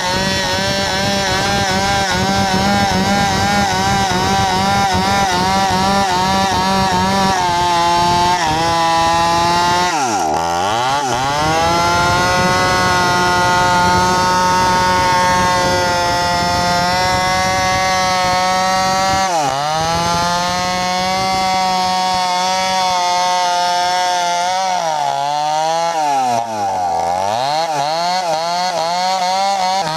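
New West 568 chainsaw with a 24-inch bar ripping a log lengthwise, its engine running steadily under load. The engine speed drops sharply and comes straight back up about ten seconds in, again near twenty seconds, and twice more close together near the end.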